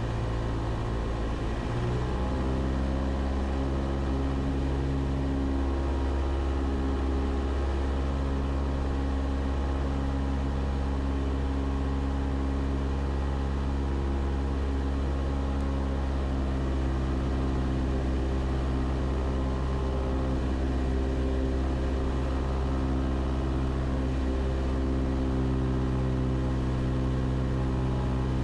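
Cessna 172's four-cylinder piston engine and propeller running steadily. The engine note changes about two seconds in, then holds.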